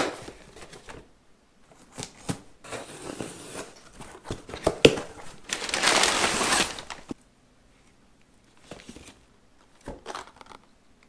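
Cardboard shipping box and its packing material being handled: scattered rustles and knocks, with a loud stretch of crinkling about halfway through, then quieter handling.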